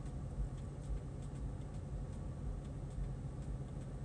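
Low steady hum inside a car cabin, with faint irregular ticks.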